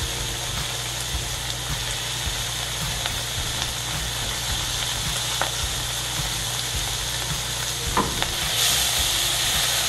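Thin slices of beef flap meat sizzling in a hot stainless-steel frying pan as more slices are laid in, with a couple of light clicks. The sizzle grows louder near the end.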